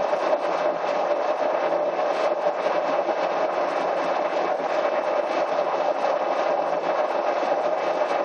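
Siemens Somatom CT scanner running, a steady mechanical whir and hum that holds level throughout.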